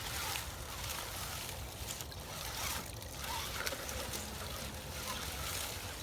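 A small stream's water rushing steadily, with a low rumble underneath.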